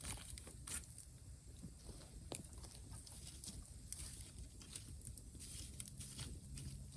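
Campfire crackling: small irregular pops and clicks over a low, steady rumble.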